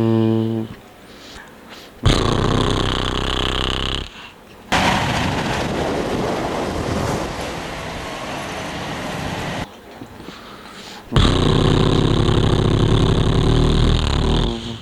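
Electronic sound effects from a toy dump truck: a few loud recorded engine-like clips, each starting and cutting off abruptly, with short gaps between them.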